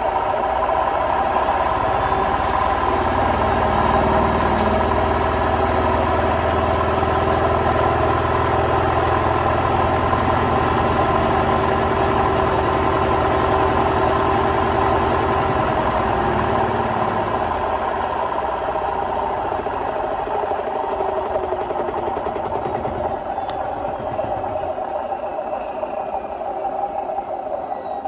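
Hotpoint WMFUG742 washing machine's brushed motor, hotwired straight to mains with no speed control through the winding the owner takes for the spin coil, running and turning the drum by its belt. It makes a loud, steady whine of several tones, with a low rumble underneath that eases off in the second half.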